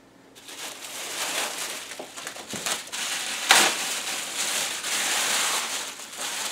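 Plastic packaging bag crinkling and rustling as a boxed speaker wrapped in it is lifted out of styrofoam packing and handled, with one sharper crackle about three and a half seconds in.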